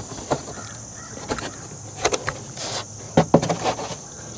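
Scattered knocks, bumps and light scraping as a stiff moulded foam spare-tire insert is handled and seated into a car's plastic trunk spare-tire well. The loudest knocks come a little past three seconds in.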